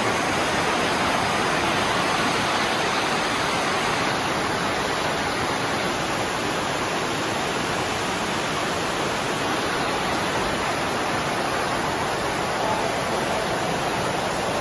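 Flash floodwater rushing and churning, a steady, even rush of water.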